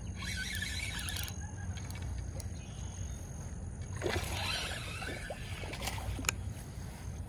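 Spinning reel being cranked with fine rapid clicking for about the first second, then a hooked bass splashing and thrashing at the water's surface about four seconds in as it is pulled to the bank.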